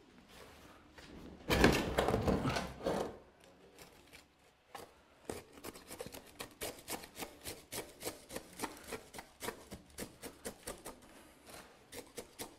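Granular bonsai substrate being worked into a pot around a tree's roots: a loud gritty rustle for about a second and a half, then a run of short scraping strokes, about two or three a second.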